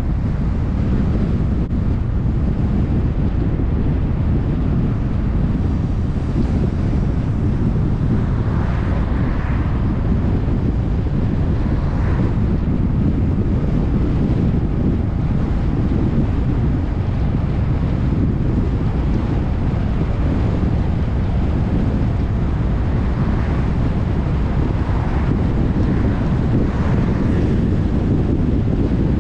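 Wind rumbling on the microphone of a moving car, with road noise: a steady low rumble throughout.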